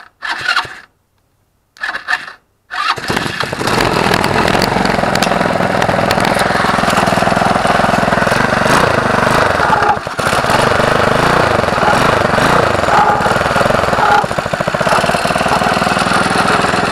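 Small go-kart engine being started, with two brief cranking attempts before it catches about three seconds in, then running steadily. Its exhaust goes through a muffler packed full of fine grade 00 steel wool to quieten it.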